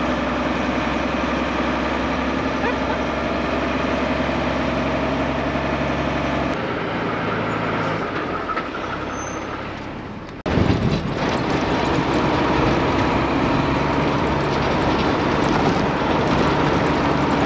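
1983 ex-army Unimog U1700L truck driving on a sandy dirt track: a steady engine drone with road noise. The sound changes suddenly about six and a half seconds in and again about ten and a half seconds in, after a short dip.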